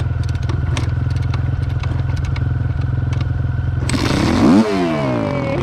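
Dirt bike engine idling steadily, with light clicks over it. About four seconds in, a louder motorcycle engine takes over, revving down and back up.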